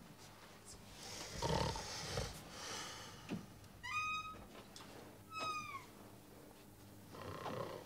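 A dog whimpering twice, two short high whines about a second and a half apart, the second falling away at its end. Before them, about a second and a half in, comes a louder rustling thump.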